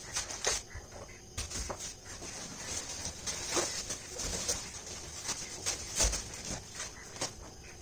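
Cardboard boxes being shifted and stacked by hand: irregular knocks and scrapes of cardboard with rustling of cardboard and plastic wrapping.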